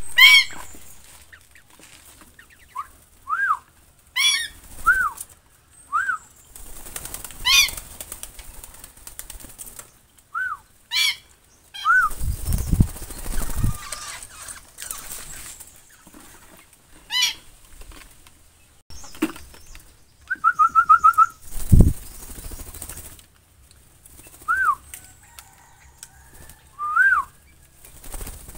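Several aviary birds calling: repeated short arched whistles and sharper high chirps, with a fast trill about two-thirds of the way through. Wings flap and a few low thumps sound in between.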